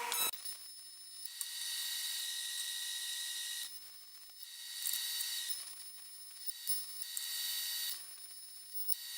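TIG welding arc on aluminium: a steady high-pitched hissing buzz with a whine, cutting out briefly about four seconds in and again near the end as the arc is stopped and restarted.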